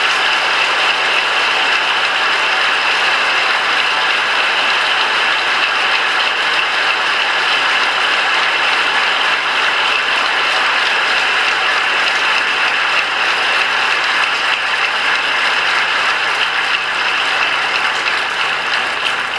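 Audience applauding: a long, steady round of clapping that eases off near the end.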